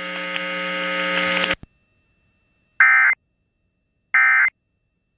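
A steady electrical buzz cuts off about a second and a half in. After a pause come the Emergency Alert System end-of-message signal's short, harsh digital data bursts, two of them about a second and a half apart, each under half a second long.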